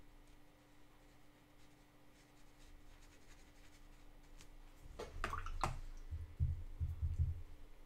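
Squirrel-hair watercolour brush stroking faintly over cold-pressed paper, then about five seconds in a brief clatter followed by several dull low thumps.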